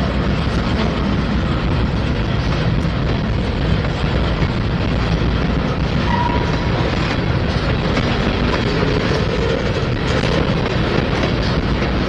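Freight train cars rolling past: a steady rumble and clatter of wheels on rail, with a brief squeal about six seconds in.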